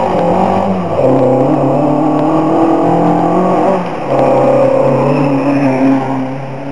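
Historic rally car's engine running hard under acceleration up a climb. Its note drops about a second in, and the sound dips briefly about four seconds in before coming back louder.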